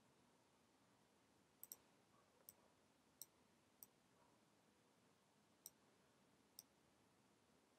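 Near silence: low room tone broken by about seven faint, sharp, irregular clicks from a computer mouse and keyboard as vertices are selected and moved.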